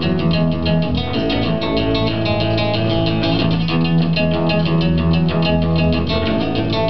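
Live band playing an instrumental break between sung lines: a strummed guitar keeps up a steady, quick rhythm over sustained low bass notes, picked up by a camcorder microphone in a small club.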